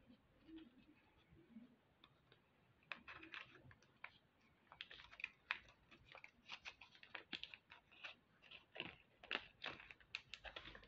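Faint, irregular crinkles and clicks of a small plastic zip-lock bag of metal beads being handled, beginning about three seconds in.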